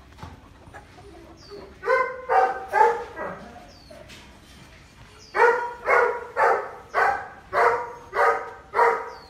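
Large black dog barking: three barks about two seconds in, then a steady run of barks, about two a second, from a little past the middle onward.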